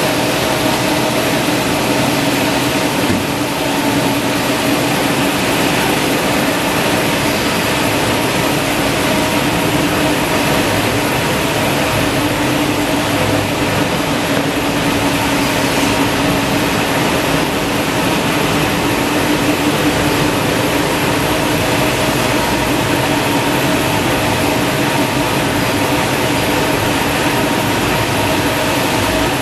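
Industrial tissue paper rewinding line for maxi (JRT) and toilet rolls running at speed: a loud, steady mechanical din of rollers and drives with a few held humming tones.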